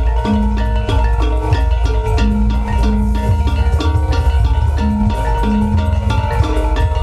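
Gamelan music: metallophones and small gongs struck in quick runs over drums, with a heavy, steady bass underneath.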